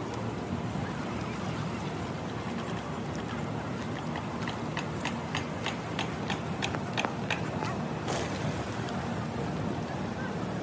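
Feral pigeons being put up off a street, against a steady outdoor hubbub. About halfway through comes a quick run of about ten sharp wing claps over some three seconds, followed by a brief rush of wings.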